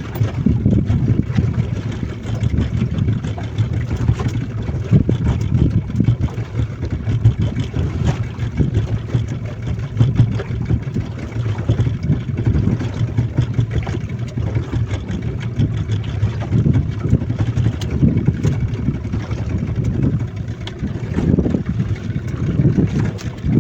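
A small fishing boat's motor running steadily while trolling, a low hum under the rush of wind and water.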